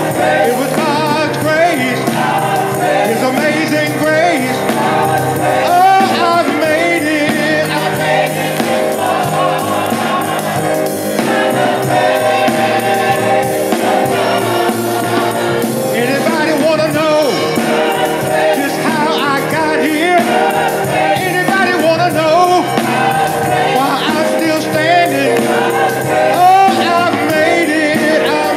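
Gospel choir singing, led by a man on a microphone, with the choir clapping along.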